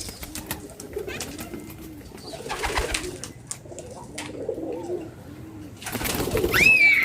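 Domestic pigeons cooing over and over in low, rolling, overlapping coos. Near the end there is a louder burst of rustling noise, topped by a high sliding call.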